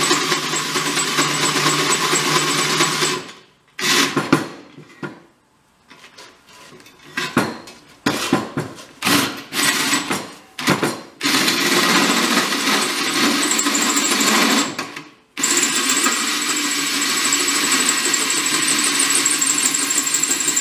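Cordless drill boring into a steel 5-gallon portable air tank, running steadily. It stops a few seconds in and runs in short on-off bursts. It then runs steadily again, with a short pause about two-thirds of the way through.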